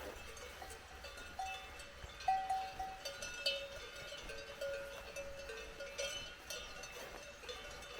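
Several cowbells on grazing cows clanking irregularly, with a few louder clanks about two to three and a half seconds in.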